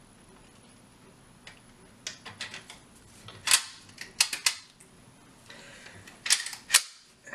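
Sharp metal clicks and clacks of an H&R Pardner Pump 20-gauge shotgun's parts being handled and fitted together during reassembly. A few light clicks start about two seconds in, followed by louder clacks, the loudest about three and a half seconds in, and a last pair near the end.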